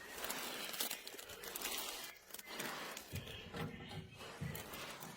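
Crinkling, rustling handling noise in several stretches, with a few soft low knocks in the second half.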